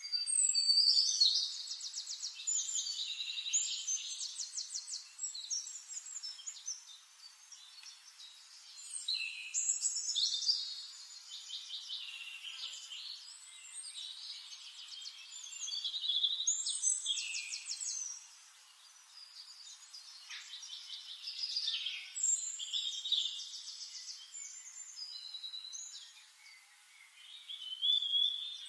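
A small songbird singing high, fast trilled phrases, each a few seconds long, repeated every six or seven seconds.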